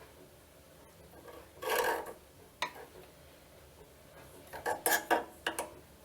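Metal objects being handled by hand, clinking and clattering: a short rattle, a single click, then a quick cluster of sharp clinks near the end.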